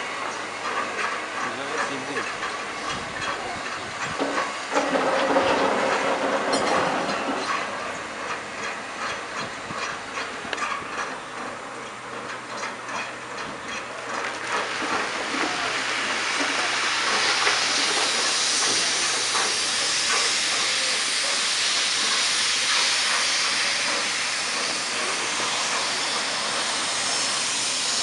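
Steam hissing steadily from GWR 1500 class pannier tank locomotive No. 1501 as it stands, growing louder and brighter about halfway through.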